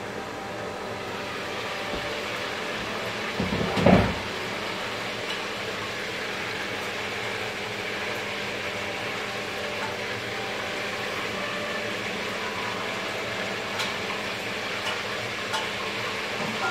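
A steady hum and hiss of kitchen background noise, with one loud clunk about four seconds in and a few light clicks later on.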